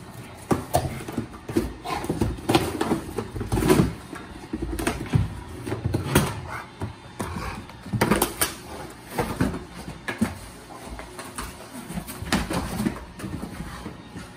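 A Rottweiler tearing and chewing a cardboard box: irregular rips, crunches and knocks of cardboard at uneven intervals.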